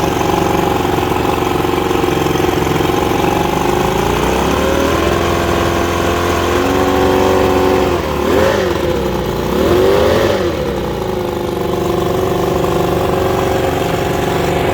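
1962 Mercury 700 70 hp inline six-cylinder two-stroke outboard running on its first run after a rebuild. It idles, is revved up about four seconds in and held there, is blipped twice in quick succession, then settles back to idle.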